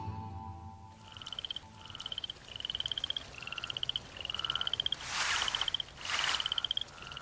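Repeated trilling frog calls: about nine short pulsed calls, each rising slightly in pitch, one after another. Two short rushes of noise come about five and six seconds in.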